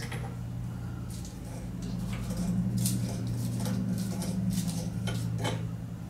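Light bulbs being unscrewed from a ceiling light fixture's sockets: scattered faint clinks and scrapes of glass and metal, about one a second, over a steady low hum.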